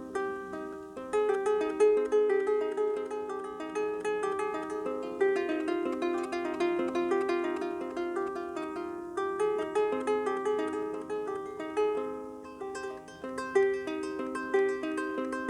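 Double diatonic harp being plucked: a continuous flow of ringing notes that overlap as each one sustains.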